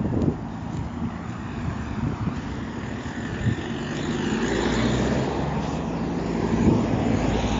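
Dubbed car sound effect: a steady engine-like drone with a low hum, growing somewhat louder about four seconds in.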